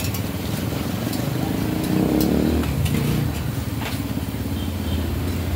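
Busy street noise: a steady low traffic rumble that swells about two seconds in, with a few sharp metal clinks of utensils at a dosa griddle.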